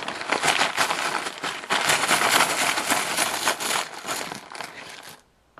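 Hand rummaging through a bag of small letter pieces to draw one, a steady clattering and crinkling that stops abruptly about five seconds in.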